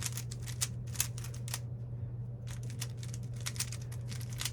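Rubik's cube being turned quickly by hand, its plastic layers clicking in rapid runs with a brief pause about two seconds in. A steady low hum runs underneath.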